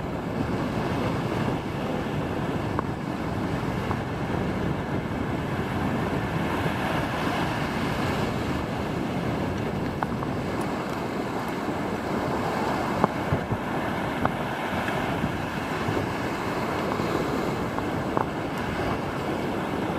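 Surf breaking on a beach with wind buffeting the microphone, a steady rushing noise with a few light clicks.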